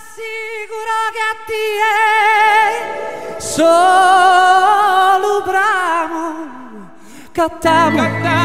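A solo voice singing unaccompanied, holding long notes with vibrato and leaping to a higher held note about three and a half seconds in. Instruments come in with low sustained notes near the end.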